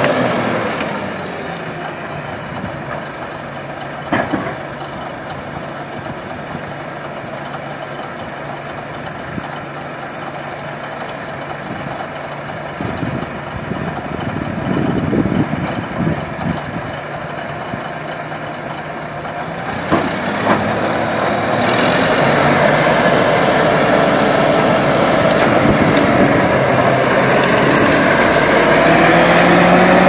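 An old crawler bulldozer's diesel engine running under load as it pushes through brush, with a couple of sharp cracks. The engine gets louder over the last several seconds and rises in pitch near the end.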